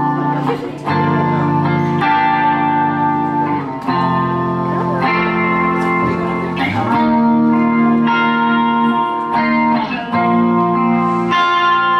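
Electric guitar through an amplifier playing slow, ringing chords, each held and let ring before the next is struck, a change every second or two.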